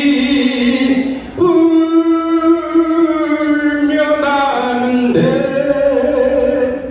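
A man singing unaccompanied into a microphone, holding long notes that step from one pitch to the next, with a short break about a second in.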